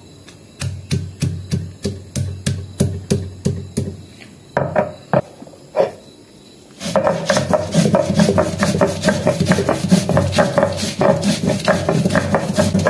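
Stone pestle pounding garlic, green chillies and cumin on a flat grinding stone (sil-batta), about three knocks a second with a few heavier blows. After a short pause, about seven seconds in, the stone is rolled back and forth over the slab, a dense gritty rasping as the spices are ground to a paste.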